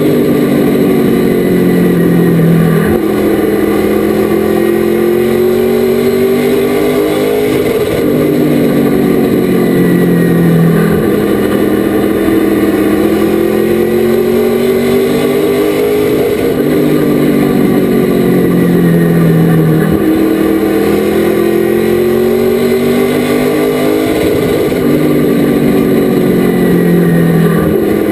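Race truck engine under load: its pitch climbs for several seconds, then drops sharply as the throttle is lifted. The cycle repeats about every eight seconds, the pattern of laps on a short oval.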